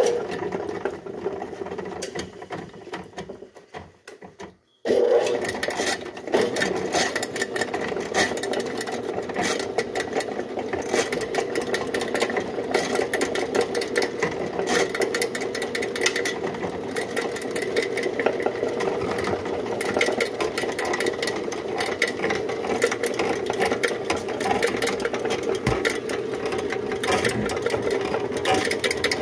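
Electric drain-cleaning machine motor running, spinning a steel snake cable down a clogged kitchen sink drain, with a fast clicking rattle of the cable. The motor dies away almost to silence about four seconds in, then starts again abruptly about a second later and runs steadily.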